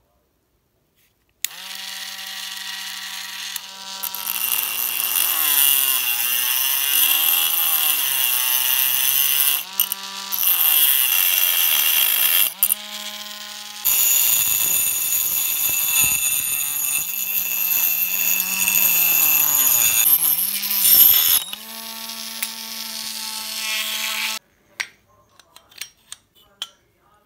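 Handheld rotary tool (mini grinder) with a small cutting disc running and cutting into a fan's metal motor housing to trim away the bushing seat. Its whine starts about a second and a half in, sags in pitch and recovers as the disc bites into the metal, breaks off briefly a few times, and stops about three seconds before the end, leaving a few faint clicks.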